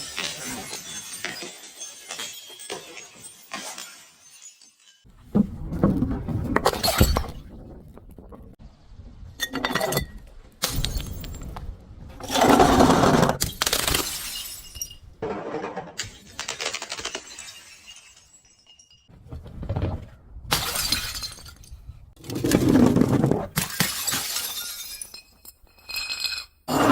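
Glass bottles shattering and being crushed in a series of separate crunching breaks, the loudest about halfway through.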